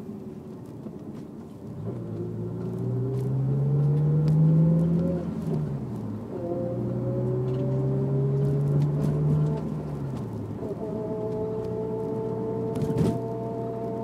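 Honda S2000's four-cylinder engine and drivetrain pulling up through a gear, dropping in pitch at a shift about five and a half seconds in, pulling again, then settling to a steady note with a whine on top. The owner attributes the whine, heard only on throttle, to either the differential or the transmission.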